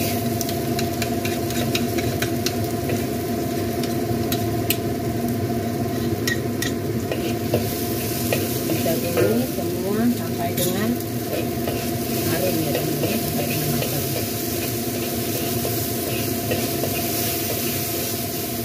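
Spice paste of blended shallots, garlic, chili and shrimp paste sizzling in a hot wok while a metal wok spatula stirs and scrapes it, with sharp clicks of the spatula against the wok, most of them in the first several seconds.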